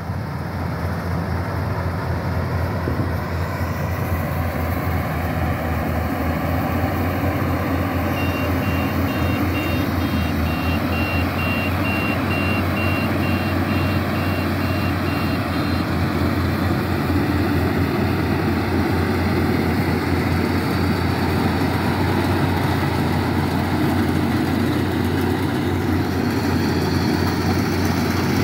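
Yanmar rice combine harvester running steadily under load while it cuts rice, its diesel engine and threshing machinery giving a deep, constant drone. For several seconds in the middle a string of evenly spaced high beeps sounds over it.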